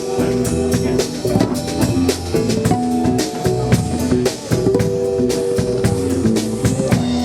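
Band playing an instrumental passage: a drum kit keeps a steady beat under held guitar chords.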